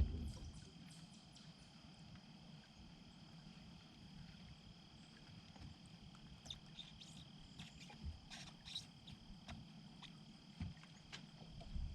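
Quiet outdoor ambience: a steady high-pitched insect drone, with scattered faint clicks and ticks, mostly in the second half, over a low rumble.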